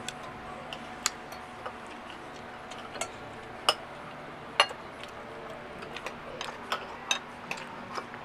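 Irregular sharp clicks and taps of spoons and forks on plates during a meal, about two a second, the loudest about four and a half seconds in.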